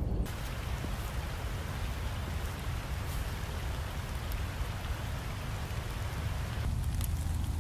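Steady hiss of rain falling in woodland, over a low rumble of wind on the microphone; the hiss thins out about a second before the end.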